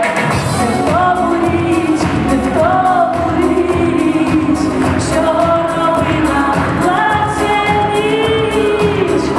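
Pop song with a woman singing a melody with held, wavering notes over a steady beat.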